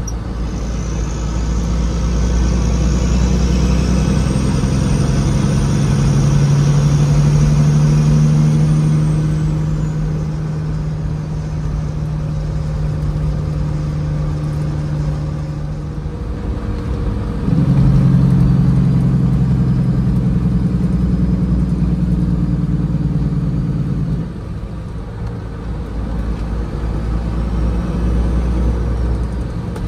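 1998 Peterbilt 379's diesel engine running as the truck drives along, heard from inside the cab. The engine note dips briefly about halfway through, comes back louder, and drops again about four-fifths of the way in.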